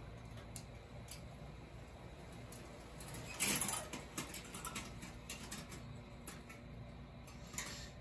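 Automatic vent damper motor on a gas boiler's flue running faintly as it drives the damper open, a low steady hum with scattered small clicks. A short rustle comes about three and a half seconds in.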